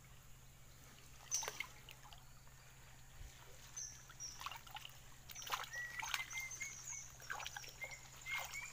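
Hands splashing and sloshing in shallow river water while working through a wet cast net, with water trickling and dripping in irregular small splashes that grow busier after about five seconds. A faint repeated chirp sounds in the second half.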